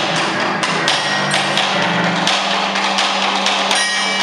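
Live experimental noise music: a dense, loud wash of harsh noise struck through by irregular percussive knocks, over a steady low drone.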